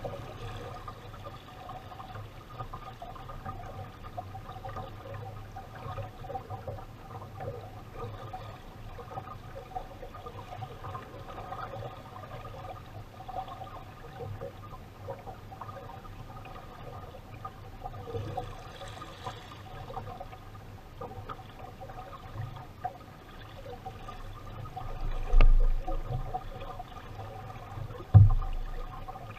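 Water sloshing and splashing along the hull of a small homemade wooden sailing dinghy under way. Near the end come two low thumps, the second sharper and the loudest.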